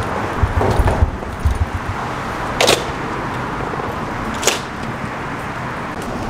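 Footsteps thudding down metal stairs over a steady wash of city traffic noise. Two short, sharp hisses come about a second and a half apart.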